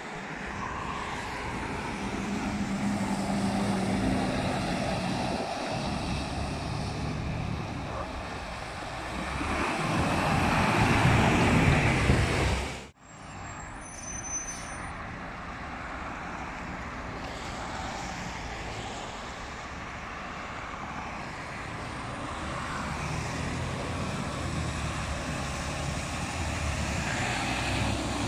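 Dump trucks and other traffic passing on a wet road: diesel engines running with tyre hiss, swelling to the loudest pass about ten to twelve seconds in. The sound cuts off abruptly about thirteen seconds in, then traffic noise picks up again and builds as another dump truck passes near the end.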